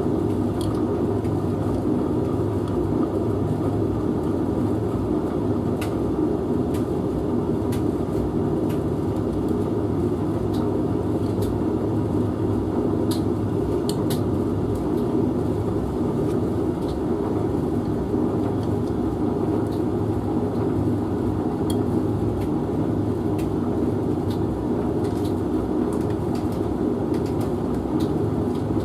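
Domestic laundry machines running mid-cycle: a steady, even hum with scattered light clicks.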